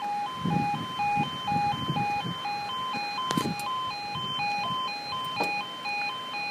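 UK level crossing audible warning alarm sounding its two-tone warble, switching rapidly and evenly between two pitches. It signals that the crossing is closing and the barriers are coming down for an approaching train.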